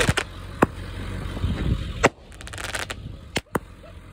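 Consumer aerial fireworks going off: a few sharp bangs spread across the seconds, with a quick run of crackling pops about two and a half seconds in.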